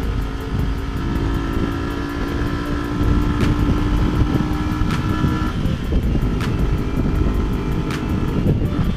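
Motorcycle engine running at a steady pitch while riding, under heavy wind rush on the on-board microphone; the engine's steady tone drops away about five and a half seconds in.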